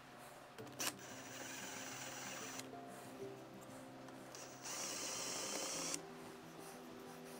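Electric hand drill boring into the soft metal of a lock body to open out a long slot, running in short spells that start and stop abruptly. Soft background music plays under it.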